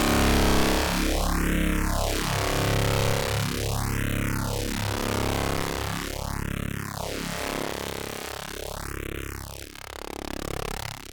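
Raw image data played back as audio, a harsh buzzing noise with a steady hum, run through Audacity's phaser effect so that a whooshing sweep rises and falls about every two and a half seconds. The sound drops briefly in loudness near the end.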